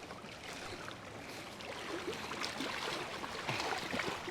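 Water splashing and trickling, with scattered small irregular ticks.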